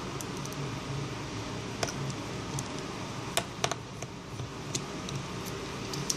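A handful of small, sharp metallic clicks and taps from tweezers and a screwdriver on the tiny screws and metal brackets inside an iPhone 5 as the screws are put back. A steady low hum runs underneath.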